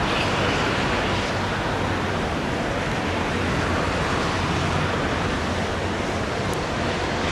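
Distant jet engine roar of an Airbus A330 airliner landing on a wet runway: a steady, even rushing noise with no clear whine.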